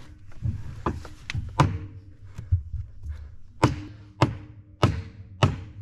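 Hammer blows on metal, driving the locking piece and propeller-shaft coupling onto the electric boat motor's shaft: a string of sharp knocks, with the last four the loudest and evenly spaced. The blows are not enough to drive the part home.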